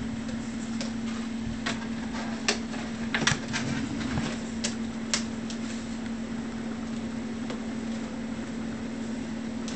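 Sharp clicks and light knocks as an electric ducted-fan housing is pushed and seated into a model jet's engine nacelle by hand, most of them in the first half. A steady hum runs underneath.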